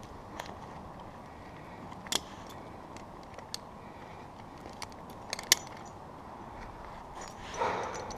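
A few sharp, scattered metallic clicks and clinks of tree-climbing hardware (carabiners and rope devices on a harness) as the climbing ropes are handled, over a steady background hiss. A brief louder rush of noise comes near the end.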